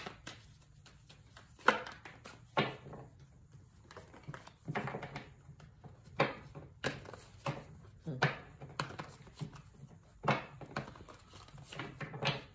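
Tarot cards being handled, shuffled and laid down: a string of short, sharp card snaps and flicks every half second to a second.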